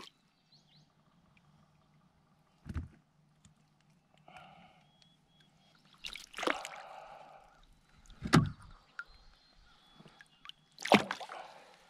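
Intermittent water splashes and knocks as a small brook trout is handled in a rubber-mesh landing net over the side of a small boat: a dull knock about three seconds in, then short splashy bursts in the middle and near the end.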